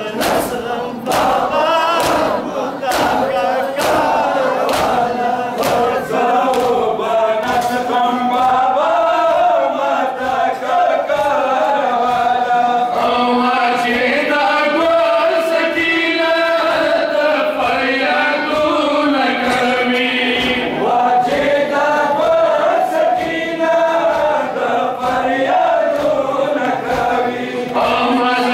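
A crowd of men chanting a Muharram nauha (lament) in unison, with the slaps of hands beating on chests (matam) striking in a steady rhythm under the singing.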